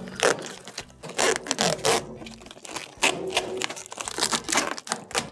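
Protective plastic film being peeled off the front of a new dryer console panel, crackling and ripping in a run of irregular rasps.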